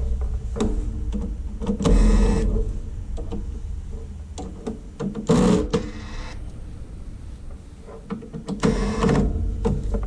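Corded electric screwdriver whirring in three short bursts as it backs out screws from a laptop-style motherboard.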